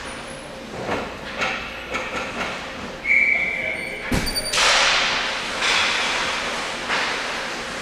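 Ice hockey play in a rink. About three seconds in there is a brief high whistle tone, a second later a sharp thud of a puck or stick, and then a long scraping hiss of skate blades on the ice.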